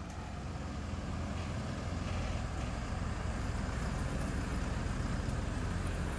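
Diesel truck engine running as the truck pulls away, a steady low drone that grows slightly louder.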